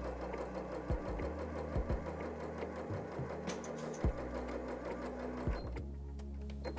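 Janome 5060 QDC computerised sewing machine stitching a straight seam through polyester fabric at a steady speed, stopping shortly before the end.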